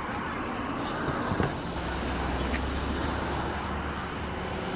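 Street traffic noise from cars on the road, with a low engine hum that sets in about two seconds in and a few faint clicks.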